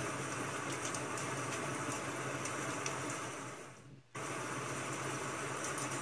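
Rain-sound ambience track: a steady, even hiss with faint ticks, fading out for a moment about four seconds in and cutting straight back in.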